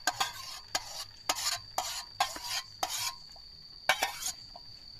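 A spoon scraping and knocking around the inside of a metal cooking pot, about two strokes a second, easing off about four seconds in, as a noodle-and-egg batter is scooped out into a frying pan. The batter sizzles faintly in the hot oil.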